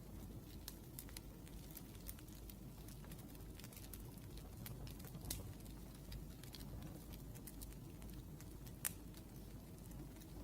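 Wood fire crackling: irregular sharp pops and snaps over a low steady hiss, with two louder pops about five seconds and nine seconds in.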